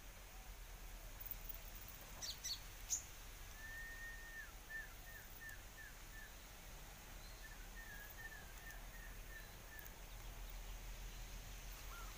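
A bird calling faintly over a low steady hiss: a held whistled note followed by a quick run of short falling notes, about five a second, with a second run a few seconds later.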